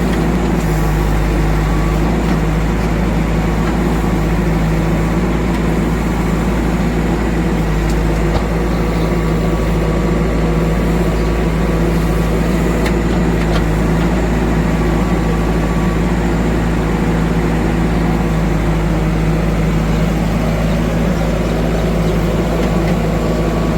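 Diesel engine running steadily at a constant speed, its note unchanged, with a few faint clicks.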